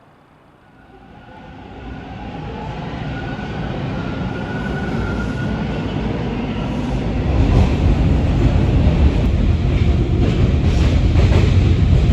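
A train approaching and passing close by, its rumble building steadily from faint to loud, with a faint squeal midway and rail clatter as it draws near.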